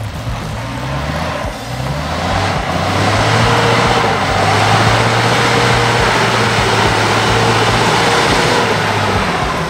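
Isuzu D-Max's 3.0-litre diesel engine revving hard under load as the pickup claws up a deep mud rut, with mud-tyre churn and spray. The revs climb about two or three seconds in, are held steady and high for several seconds, then ease off near the end.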